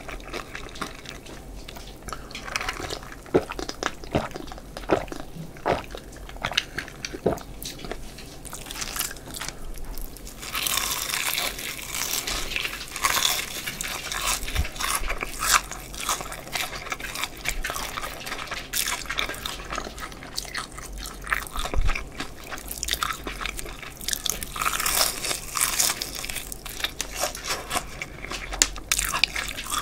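Close-miked eating of crispy BBQ Golden Olive fried chicken drumsticks: a few scattered wet mouth clicks at first, then from about ten seconds in a long run of loud crunching as the fried batter is bitten and chewed, with another bout of crunching near the end.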